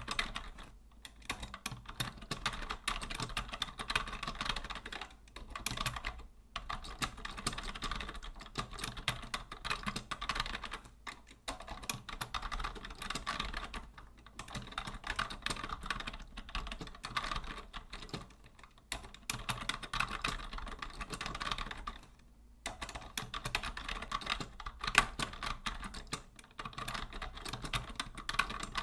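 Typing on a vintage Logitech Deluxe 104 wired keyboard: a dense, fast run of key clicks with brief pauses every few seconds.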